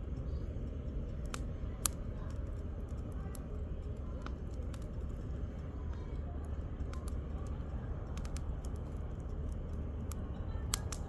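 Firewood burning in a campfire, crackling with irregular sharp snaps and pops over a steady low rumble; the loudest pops come about two seconds in and again near the end.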